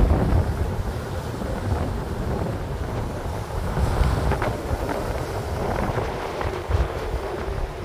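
Wind buffeting the microphone of a phone held by a rider on a moving Onewheel: a steady low rumble with a few light clicks.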